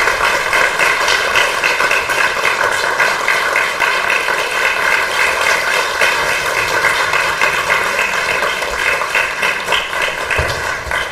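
Audience applauding, a dense, steady clapping that dies away near the end.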